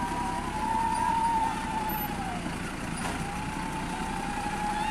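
Tractor diesel engine running as the tractor rolls forward on a river ferry's pontoon. Over it a high wavering tone swells up and falls away twice, each swell about two seconds long.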